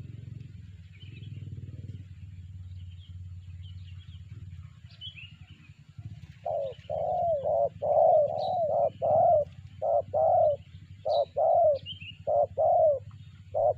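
Spotted dove (terkukur) cooing: from about halfway through, a long run of loud coos in short groups, each note swelling and falling. Small birds chirp faintly in the background.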